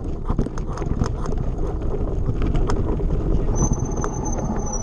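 Mountain bike rolling over a gravel track: a steady rumble from the tyres and wind on the mic, with the bike rattling and clicking over the bumps. From about three and a half seconds in, a thin high brake squeal joins in and holds.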